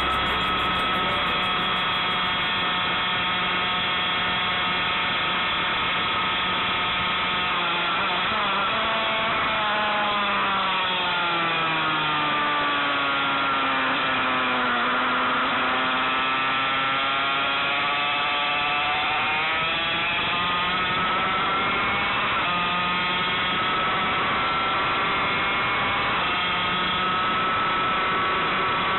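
Yamaha TZ250 two-stroke twin racing engine at high revs. The revs sink steadily from about eight seconds in to a low point around fifteen seconds, then climb again, with a jump near twenty-two seconds, and hold high to the end.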